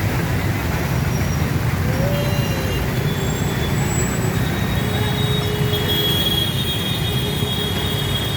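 Steady low rumble of street traffic, vehicles running past, with faint thin high tones from about halfway through.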